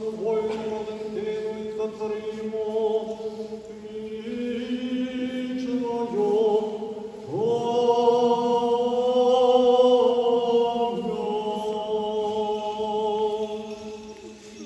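Church funeral chant for the dead, sung slowly in long held notes by voices. The singing swells louder about seven seconds in and fades near the end.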